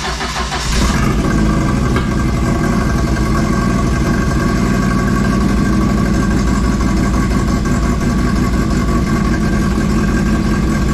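Turbocharged four-cylinder engine of a Mk1 Ford Fiesta, breathing through a newly fitted full exhaust system, starting up: it runs roughly for the first second, then settles into a steady idle.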